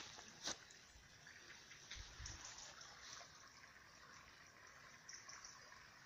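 Faint steady rush of running river water, with one sharp click about half a second in and a few soft low thumps around two seconds in.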